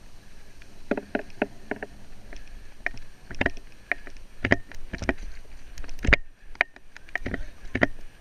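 A run of sharp, irregular knocks and clacks, sometimes two or three close together, the loudest about six seconds in, with no engine heard.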